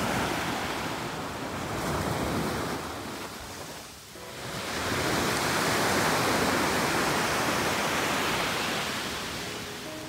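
Small sea waves breaking and washing up the shore, rising and falling in swells: one wash fades out about four seconds in, then a larger wave surges in and slowly draws back.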